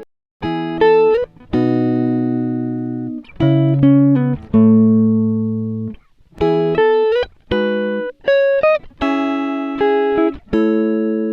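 Background music: a plucked string instrument, likely guitar, playing slow phrases of notes and held chords. Some notes slide up in pitch, and there are short pauses between phrases.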